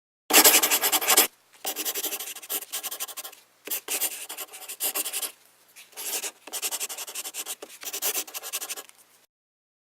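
Rapid scratching or rubbing noise in four stretches, each about one to three seconds long, with short pauses between them.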